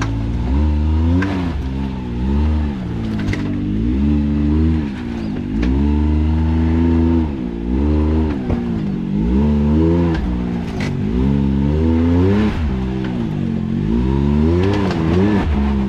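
Side-by-side UTV engine revving up and down in repeated throttle blips as the machine crawls up a rocky obstacle, with a few sharp clicks and knocks.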